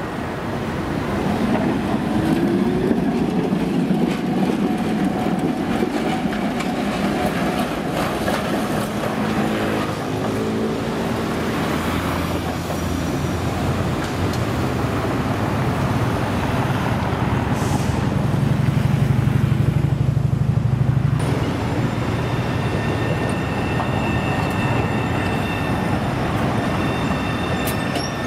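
Milan trams running on street track, with wheel and rail rumble throughout. At the start, a 1920s Peter Witt-type tram's motor whine rises in pitch as it gets under way. After a sudden change near the end, a newer articulated tram passes with a steady high whine.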